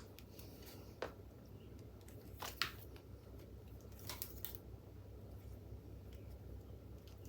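A few faint, scattered clicks and light rustles of bicycle parts and cables being handled, over a low steady hum.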